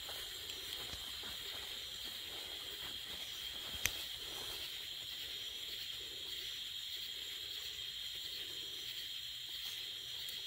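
Steady high-pitched chorus of night insects, an even unbroken buzzing. A single sharp click about four seconds in.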